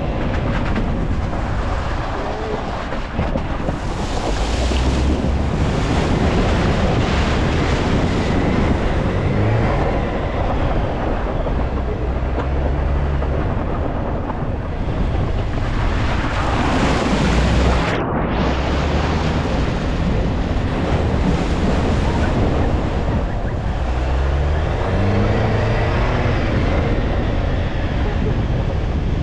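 Jeep engine pulling through a water crossing, its pitch rising and falling, with water splashing and rushing around the vehicle and wind buffeting the microphone.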